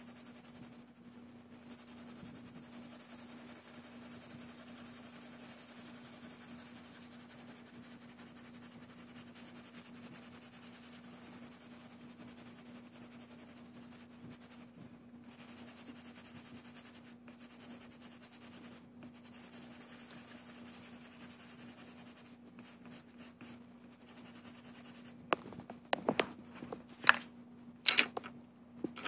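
Marker tip rubbing steadily across paper while colouring, over a low steady hum. Near the end comes a string of sharp clicks and taps.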